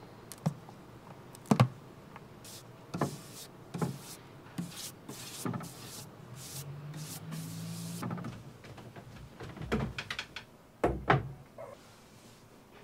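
Clicks and knocks from a paint can lid being worked, then a series of short swishes from a paintbrush stroking paint onto bare plywood. A few heavier knocks and thumps come near the end.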